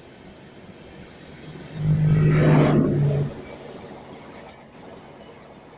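Train at the platform below: a sudden loud, steady low drone with a rushing roar, lasting about a second and a half before dropping back to a faint rumble.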